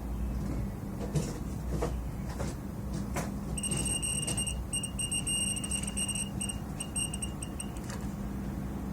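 A high electronic beeping tone chirps on and off for about four seconds in the middle. Under it run a steady low electrical hum and a few light knocks.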